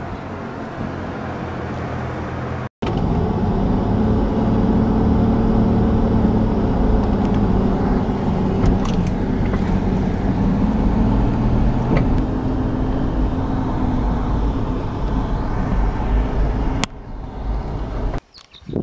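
A 4x4 truck driving on a dirt track, with engine and road noise and the engine pitch rising and falling gently. This starts after a cut about three seconds in and stops suddenly near the end.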